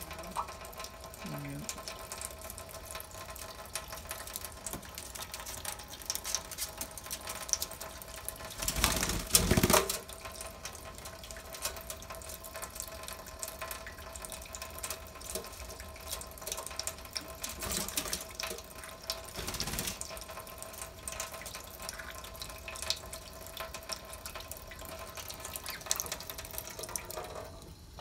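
Kitchen tap running steadily into a stainless steel sink, water spattering on the metal. A louder rush comes about nine seconds in, and a shorter one near twenty seconds.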